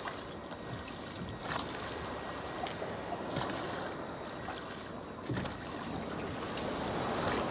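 Sea wash and wind around a small open boat at the shoreline, with a few short knocks.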